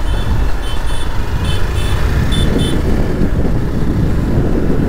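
Motorcycle riding noise, engine running with wind rushing over the microphone. In the first three seconds a series of short high electronic beeps sounds in pairs, about a third of a second apart.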